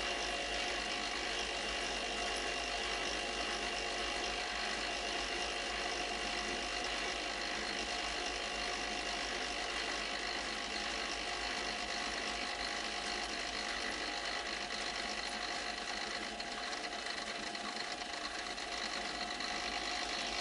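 Mini lathe running with a steady whine of motor and gears, several tones held level throughout, as the tool bit cuts a bevel into the fin grooves of a Stirling engine power cylinder, dry without coolant.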